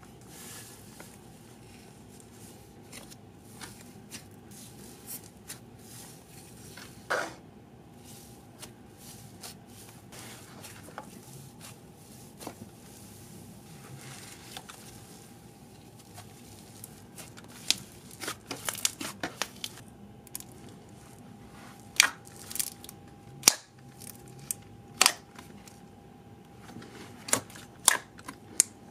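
Slime being poked, stretched and squished by hand, giving scattered sharp clicks and pops, more frequent and louder in the last third.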